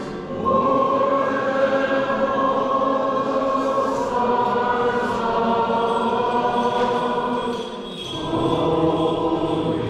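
Choir singing long, held chords, with a short break between phrases about eight seconds in.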